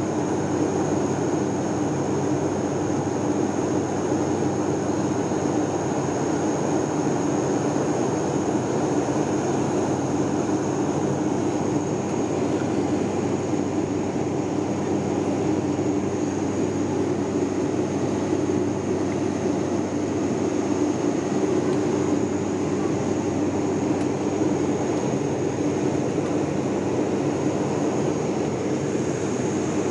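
Steady cabin noise inside an airliner climbing after take-off: a dense drone of engines and rushing air, with a thin high whine held steady over it.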